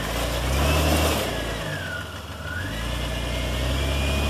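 Off-road 4x4's engine pulling under load at low speed as it crawls a trail obstacle. The engine swells, eases off about two seconds in, then builds again, with a whine that rises and falls with it.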